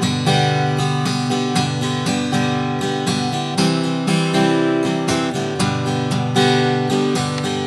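Steel-string acoustic guitar strummed in a steady rhythm, changing from a G chord to a C chord and back to G. The last G chord, struck about six seconds in, is left ringing and fades away.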